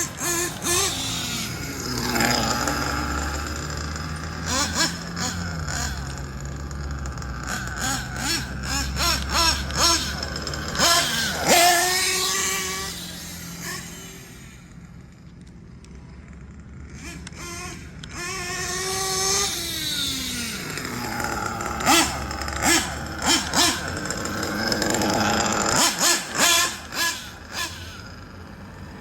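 Kyosho Inferno NEO ST 3.0 nitro RC truck's small glow-fuel engine revving up and down as it drives, dropping away for a few seconds a little past halfway and then coming back louder.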